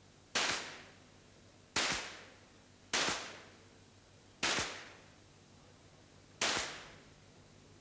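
Five .22 rimfire free pistol shots fired along the line by several shooters, irregularly spaced over about six seconds, each a sharp crack that dies away within half a second.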